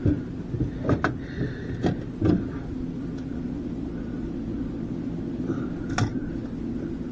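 A cluster of sharp knocks in the first two and a half seconds and one more about six seconds in, over a steady low rumble.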